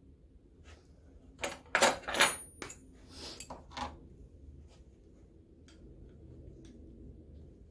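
Metal parts and hand tools clinking and knocking while being handled on a stationary engine's crankcase: a quick cluster of sharp clinks about two seconds in, then a few faint taps.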